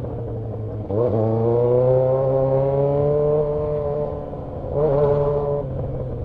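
Yamaha XJ6's inline-four with an open straight-pipe exhaust accelerating. The throttle opens sharply about a second in and the pitch climbs, it eases off a little before five seconds, then opens again briefly.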